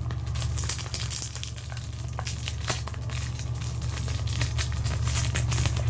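Packaging being handled and opened: a dense run of crinkling and small clicks over a steady low hum.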